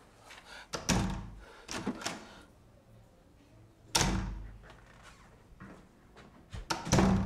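A heavy wooden door banging: knocks and thuds about one and two seconds in, a loud slam about four seconds in, and another loud bang near the end.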